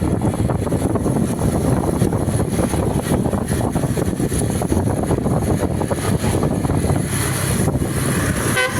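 Bus running on the road, a steady low rumble of engine and road noise. A horn note begins right at the very end.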